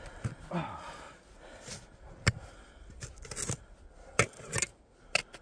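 Spade digging in frozen soil: short scrapes and scattered sharp knocks and clicks, the loudest knock a little past two seconds in.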